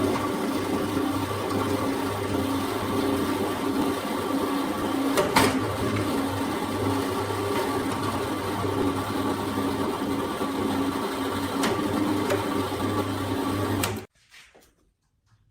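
A small electric machine running steadily, a low hum under a noisy whir, with a couple of sharp clicks; it cuts off abruptly near the end.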